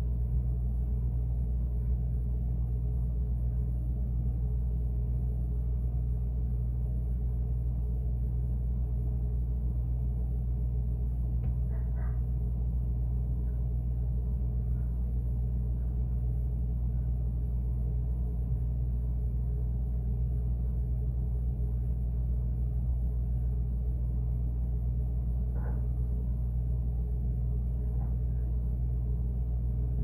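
Refrigerator compressor humming steadily, picked up from inside the closed fridge, with a few faint ticks about twelve seconds in and again near the end.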